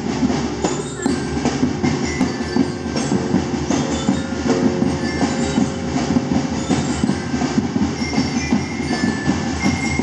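Many homemade plastic-bottle shakers on sticks rattling together as a crowd of children swings them, a dense continuous clatter.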